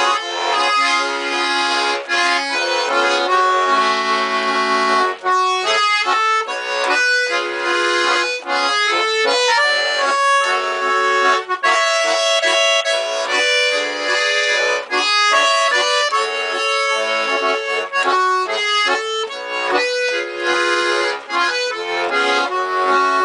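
Bayan (Russian button accordion) playing an instrumental interlude: a moving melody over sustained chords, without singing.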